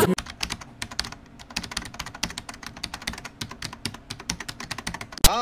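Computer-keyboard typing sound effect: quick, irregular key clicks, several a second, with one louder sharp click near the end.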